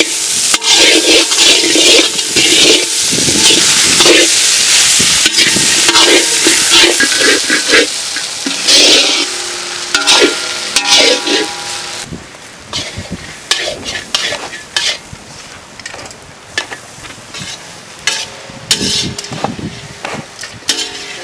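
Shredded chicken frying in a pan of onion-and-spice masala in oil, sizzling while a metal spoon stirs and scrapes it, with frequent scrapes and taps. The sizzle is loud for about the first half, then dies down to quieter stirring with scattered taps.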